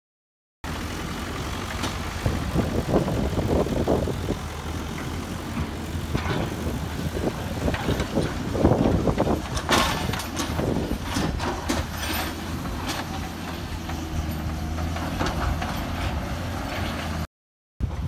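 JCB 3CX backhoe loader's diesel engine running steadily under load. Louder bursts of clattering and scraping come about two to four and eight to ten seconds in, as the front bucket pushes and levels soil.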